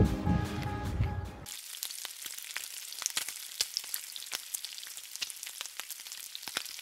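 Music ending about a second and a half in, then bacon sizzling and crackling on a flat-top griddle, with many scattered pops.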